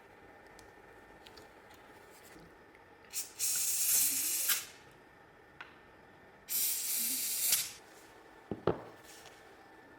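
Two bursts of spray from an aerosol can, each about a second long, followed by a couple of sharp knocks near the end.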